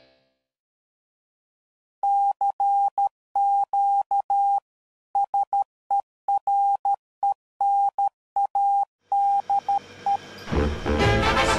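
Morse code: a single steady beep keyed on and off in dots and dashes, starting about two seconds in and running for about eight seconds. Over the last second or so a swing band with brass fades in.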